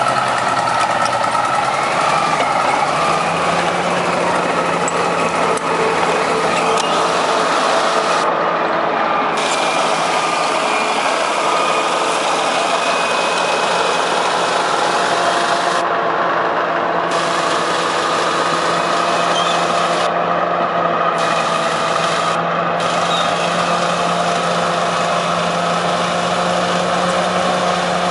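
Heavy diesel construction machinery running steadily, with a loud, continuous engine drone and mechanical hum.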